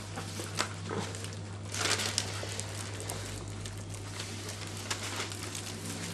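Flat-coated retriever puppy worrying an octopus toy: scattered clicks and scuffles of mouthing and paws, with a louder rustling burst about two seconds in, over a steady low hum.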